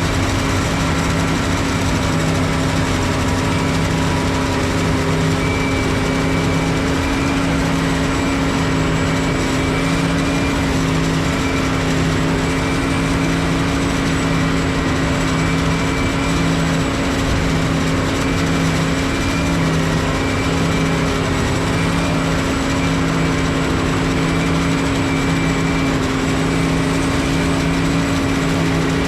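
Heavy farm machinery running steadily at constant speed: a deep engine hum with a steady high-pitched whine over it, unchanging throughout.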